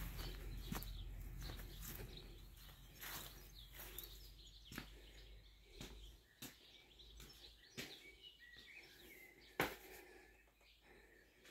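Quiet outdoor garden ambience: a low rumble that fades out about halfway, faint bird chirps, and scattered sharp clicks, the loudest a little before the end.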